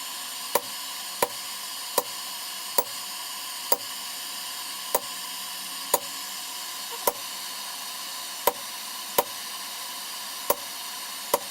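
Hand hammer striking hot steel on an anvil: about a dozen single ringing blows at an uneven, unhurried pace, deepening the score marks and spreading a forged leaf. A steady hiss runs underneath.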